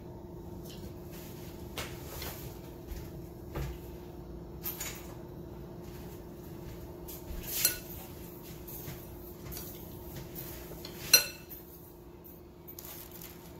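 Scattered light clinks and taps of a metal spoon against a ceramic bowl of panko crumbs, with one sharp, loud clink about eleven seconds in. A steady low hum runs underneath.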